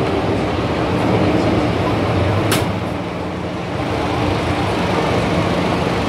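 MTR M-Train electric multiple unit running, heard from inside the car by the doors: a steady rumble with a faint low hum, and one sharp click about two and a half seconds in.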